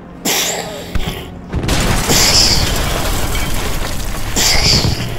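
Battle sound effects: a string of booming explosions, with fresh blasts breaking in several times, over a continuous battle rumble.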